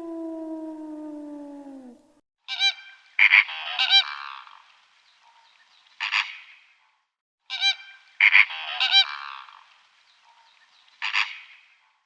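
A wolf's howl sliding down in pitch and ending about two seconds in, followed by a bird's short, loud calls in repeated clusters with brief pauses between them.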